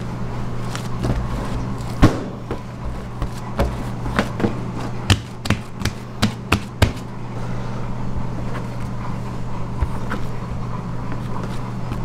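Large mass of pizza dough being handled on a stainless-steel table: soft handling noise with a loud knock about two seconds in and a quick run of sharp slaps and knocks a few seconds later. A steady low hum continues underneath.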